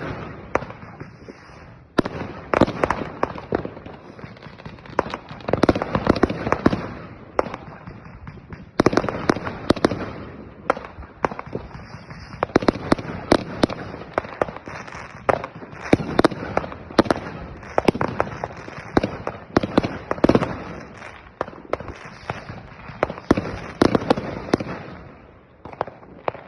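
Fireworks and firecrackers going off without pause: a dense run of overlapping bangs and crackles, with louder flurries every second or two.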